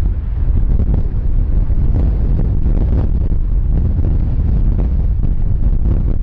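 Strong storm wind buffeting the microphone: a loud, gusting low rumble.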